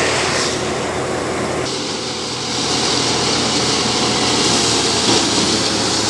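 Rice threshing machine running steadily: a loud mechanical drone with a constant low hum and a dense rushing noise. The sound shifts abruptly twice in the first two seconds.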